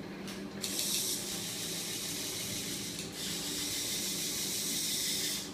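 Aerosol spray hissing in two long bursts, with a brief break about halfway through, aimed at the machine's spinning flywheel. Under it runs the steady hum of the homemade magnet motor.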